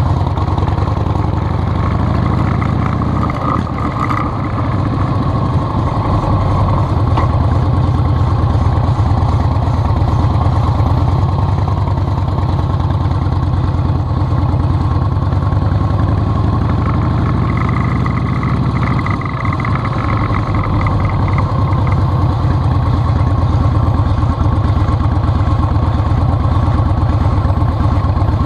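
A vehicle engine running steadily with even firing pulses, its pitch rising and falling slightly near the start and again about two-thirds of the way through.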